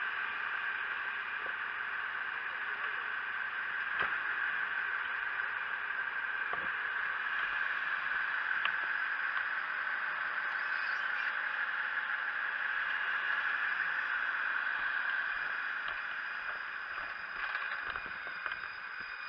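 Steady mechanical running noise from the fire engines at the scene, even throughout, with a few short knocks of equipment being handled.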